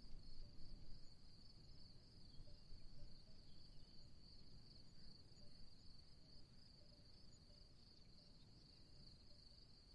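Faint, steady trill of crickets over a low rumble, with the rumble a little stronger in the first second.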